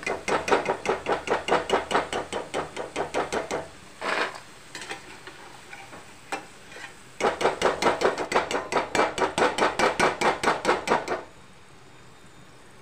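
A perforated steel skimmer clacking rapidly against a steel kadai as peanut pakodi is stirred in hot oil, about five strikes a second in two runs of a few seconds each. The oil sizzles softly beneath and between the runs.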